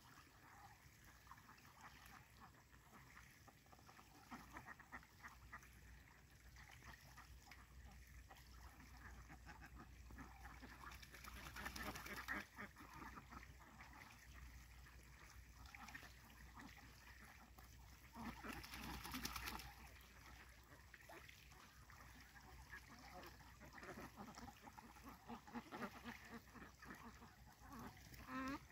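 A large flock of domestic ducks quacking faintly and continuously, many short overlapping calls, swelling for a moment about halfway through and again about two-thirds of the way through.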